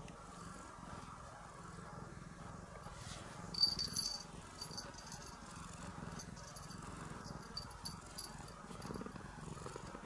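Domestic cat purring steadily as it rubs up close. A small collar bell tinkles briefly about three and a half seconds in, with fainter jingles later.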